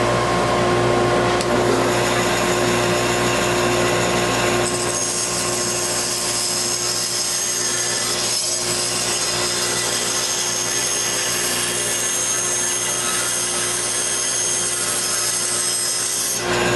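Delta bandsaw running with a steady motor hum, cutting into a cedar board along a curved pencil line, with the blade's higher cutting sound coming in about five seconds in.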